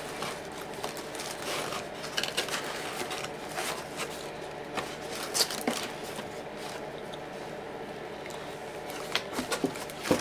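A person eating fried chicken close to the microphone: scattered small crunches and wet mouth clicks, thickening into a cluster near the end, over a faint steady hum.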